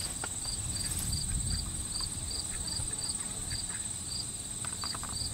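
Insects in the field, crickets or katydids: a steady high buzz with a regular chirp about twice a second, over a low rumble of wind on the microphone.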